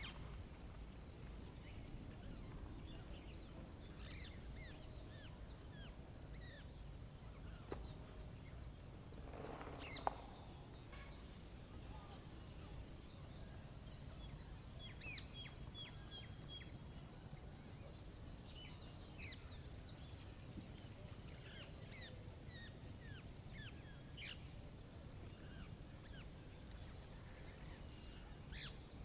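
Faint chorus of small birds chirping and calling over a steady low background rumble. About ten seconds in, a brief louder rustle ends in a sharp click.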